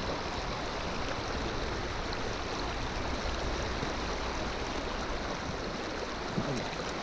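Steady rushing of a fast river current running over rocks.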